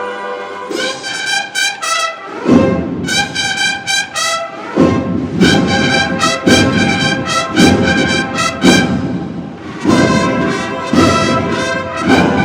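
Cornet and drum band playing a processional march. A held brass chord breaks into short repeated cornet phrases, and heavy drum strokes come in about once a second after a couple of seconds.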